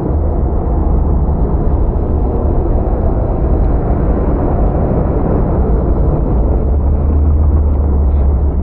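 A pack of hobby-class pickup race trucks running at racing speed around the oval. Their engines blend into one loud, steady rumble with a heavy low drone.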